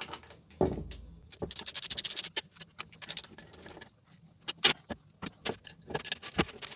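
A socket wrench ratchets in quick runs of clicks as the chainsaw's bar nuts are undone. Then come several sharp metal knocks and clatters as the sprocket cover and tools are set down on a sheet-metal workbench.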